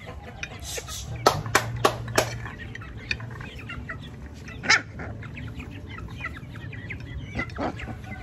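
Many short animal calls, bird-like and clucking, throughout. A quick run of four sharp clicks or knocks comes a little over a second in, and another near the middle. A steady low hum runs underneath.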